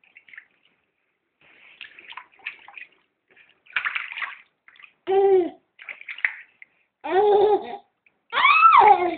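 Bath water splashing, then a young child making three long, loud wordless vocal sounds that rise and fall in pitch.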